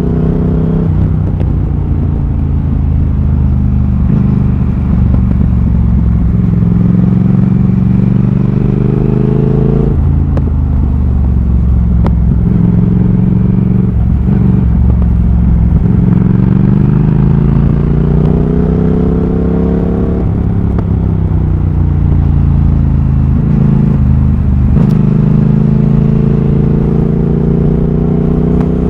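Triumph Thruxton RS's 1200 cc parallel-twin engine through a British Customs GP slip-on exhaust with X-pipe, heard onboard while riding. The pitch climbs steadily under acceleration, drops sharply about ten seconds in and several more times later at gear changes or throttle closing, then climbs again.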